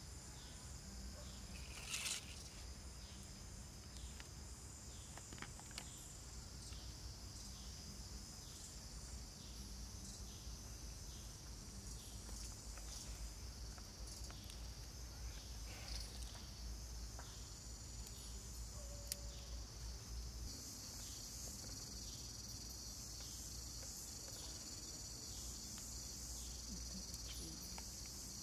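Steady high-pitched chorus of insects chirring, growing louder about two-thirds of the way through. A short sharp noise comes about two seconds in.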